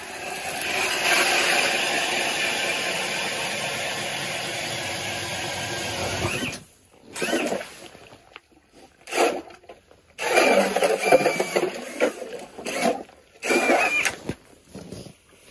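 Cordless drill driving an 8-inch ice auger through lake ice: one continuous run of drilling for about six and a half seconds that cuts off suddenly, then four or five short bursts of the drill spinning the auger in and out of the slushy hole.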